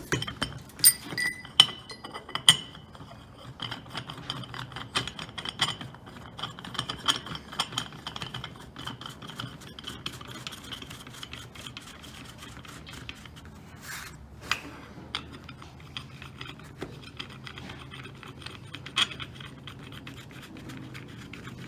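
Steel parts of a clutch tool kit clinking, with several ringing metal strikes in the first few seconds, then a long run of small metallic ticks and rubbing as threaded fingers are screwed by hand into a plate, over a low steady hum.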